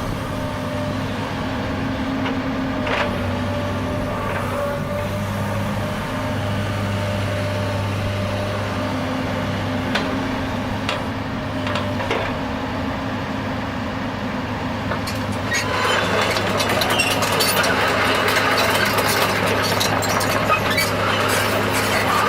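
2007 Komatsu PC200LC-8 hydraulic excavator's diesel engine running steadily, with a few scattered clanks. About fifteen seconds in it grows louder, with a rush of noise and a rapid run of clicks and clanks as the machine works.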